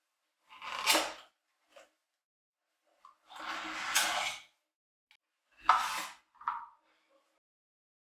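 Plastic vacuum accessory tools being handled and slid out of a cardboard packaging insert: three short scraping, rustling bursts, the middle one longest, with a few small taps between.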